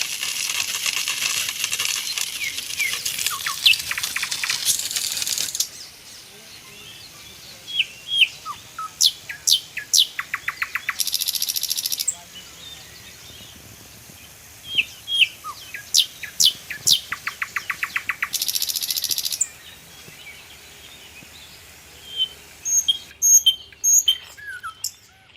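Birdsong: many short chirps and whistled calls, with loud buzzy trills at the start, about eleven seconds in and again about eighteen seconds in; the same run of calls and trills comes round twice.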